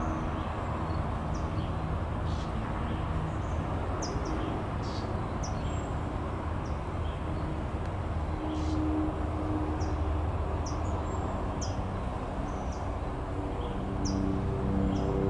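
Steady low rumble of distant traffic, with a dozen or so brief, high bird chirps scattered throughout.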